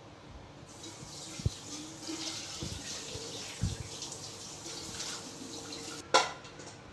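Cooking oil poured from a bottle into a stainless-steel pan, a soft steady hiss with a few light knocks. A sharp metallic clink about six seconds in.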